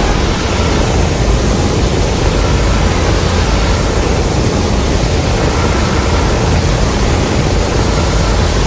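A continuous rushing, rumbling noise, heaviest in the low end, holding steady without breaks or distinct strikes.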